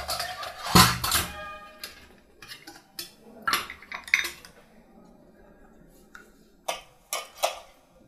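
Stainless steel kitchenware clinking and clattering: a metal hand lemon squeezer set down on a steel plate and utensils knocking against a steel mixing bowl, in a series of sharp clinks, loudest about a second in, with more clinks in the middle and again near the end.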